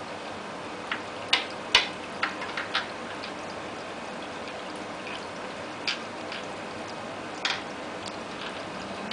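Short, irregular clicks and taps as a kitten paws and noses at a small thing on a hard windowsill: a quick cluster of about half a dozen about one to three seconds in, then a few single taps later, over a steady background hiss.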